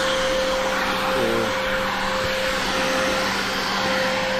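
Electric power sander running steadily on cured Woodepox wood filler, its motor giving a constant whine over a broad hiss.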